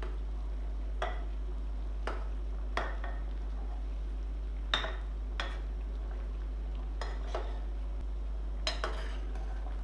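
Kitchen utensils clinking against dishes and pots in food preparation: about nine separate light clinks spread irregularly, the loudest a little before the middle, over a steady low hum.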